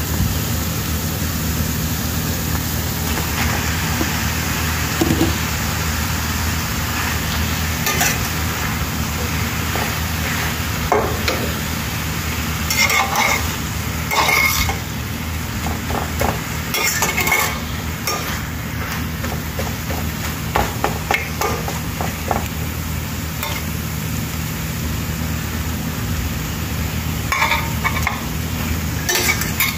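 Penne and spinach sizzling in a stainless steel frying pan while a slotted metal spatula stirs them, scraping and clinking against the pan every few seconds, over a steady low hum.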